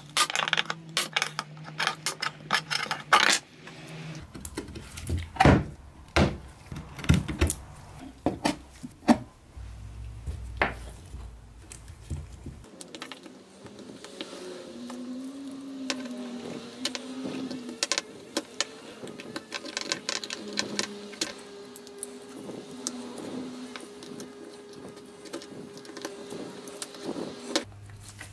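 Hand tools working on old cabinet hardware and wood. A screwdriver and metal tools click and tap sharply against a metal fitting and the wooden panel. Then quieter scraping of wood with a small blade and chisel follows.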